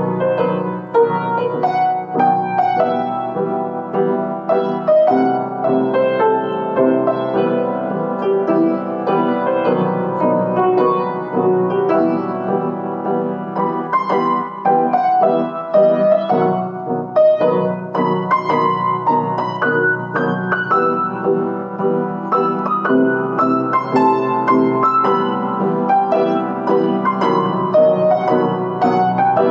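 A piano played solo: a continuous flow of melody notes over sustained chords.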